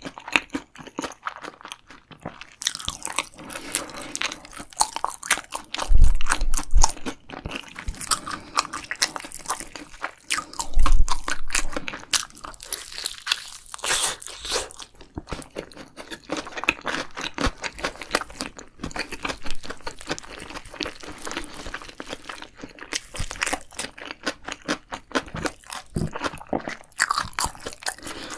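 Close-miked eating: crunchy bites and chewing, a steady run of wet, crackling clicks. Two heavy low thumps stand out, about six seconds in and again about eleven seconds in.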